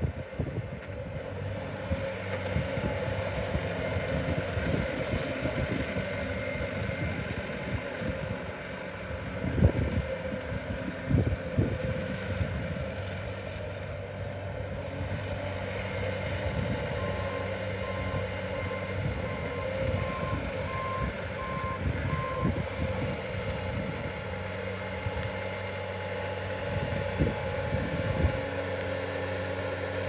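A 2014 Bobcat S530 skid steer loader's diesel engine running steadily as the machine drives and turns. Just past halfway through, its backup alarm beeps about nine times, roughly one and a half beeps a second. Low gusts of wind buffet the microphone, the strongest about a third of the way in.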